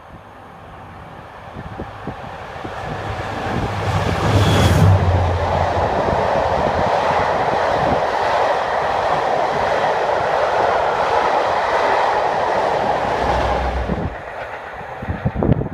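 A diesel-hauled train passing at speed: the locomotive's engine builds to its loudest about four seconds in, then a steady rush and rumble of carriage wheels on the rails for around ten seconds that falls away near the end, leaving irregular wheel clatter.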